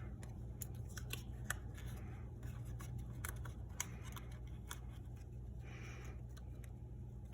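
Thin oatmeal-box cardboard being handled and slotted together: scattered light clicks, taps and brief scrapes of card against card.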